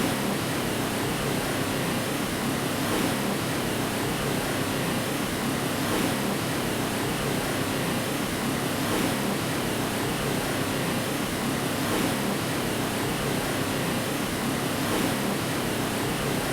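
Steady white-noise hiss spread evenly from low to high pitches, with a faint swell about every three seconds. It is played as a sleep aid to lull a baby to sleep.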